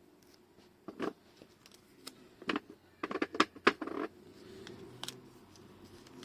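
Hands handling paper and craft supplies on a table: scattered light taps and clicks, with a quick run of sharper taps about three to four seconds in.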